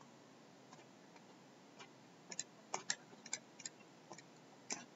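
Faint, irregular light clicks of a stylus tapping on a pen tablet during handwriting, starting about two seconds in, over a quiet room tone.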